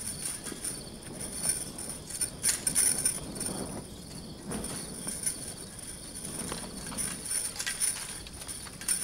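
Footsteps of several people walking on a stone floor: irregular knocks and scuffs.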